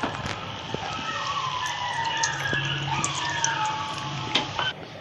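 Batata vadas deep-frying in hot oil in a kadhai: steady sizzling with scattered crackles, and faint wavering tones in the background.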